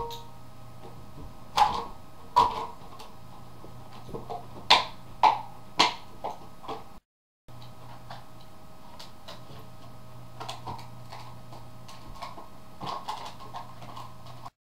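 Two boxer dogs playing and tugging at a dog bed, making a string of sharp knocks and thumps, five loud ones in the first six seconds and fainter ones later, over a steady low electrical hum.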